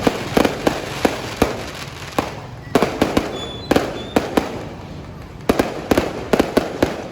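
Fireworks display going off: a run of sharp bangs at an irregular pace, grouped in quick clusters with short gaps between them.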